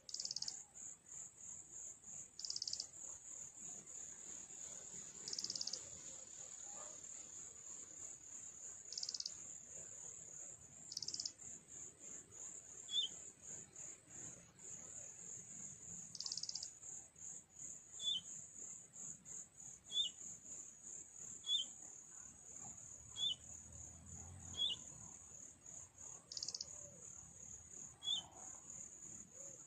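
Steady, high-pitched, finely pulsing insect trill, such as crickets, with a small bird giving short falling chirps about seven times in the second half.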